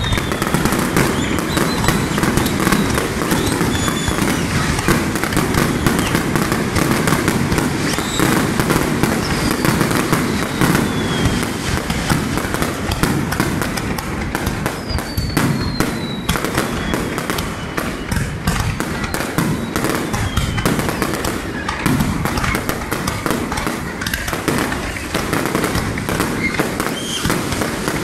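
Fireworks display in a continuous, dense barrage of shell bursts and crackling, with several falling whistles over it.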